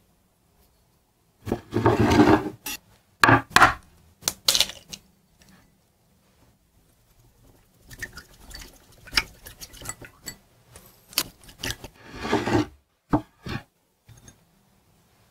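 Hands breading a patty in a small glass bowl: a patty rubbed and pressed in flour, with sharp clicks and knocks of glass bowls on a bamboo cutting board. There are two longer rubbing spells, one early and one near the end, with scattered taps and knocks between them.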